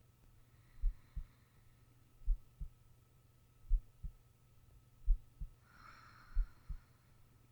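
A sleeping person's heartbeat picked up close: slow, even lub-dub double thumps, five in all, about one every 1.4 seconds. A soft breath is heard about a second in and a louder one around six seconds in.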